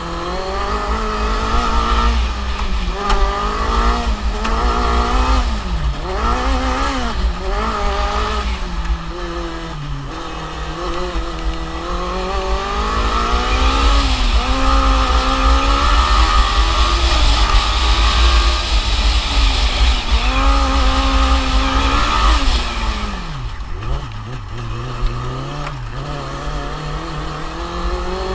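Formula Student race car's engine heard onboard, its revs climbing and dropping over and over through the corners and held high for several seconds in the middle, over a steady low wind rumble on the microphone.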